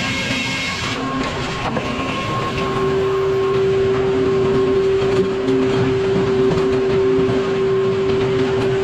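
Sawmill machinery running with a steady mechanical drone; about two and a half seconds in, a strong steady hum sets in and holds.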